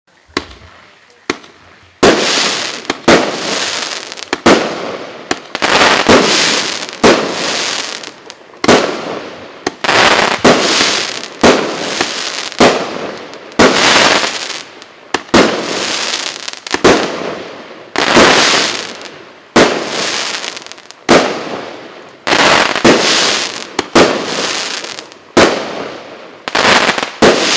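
Russkaya Pirotekhnika PC7077 'УПС' 19-shot, 1.1-inch consumer fireworks cake firing. It gives a quick series of sharp reports, roughly one to two a second. Each is followed by a crackling hiss that fades out over about a second.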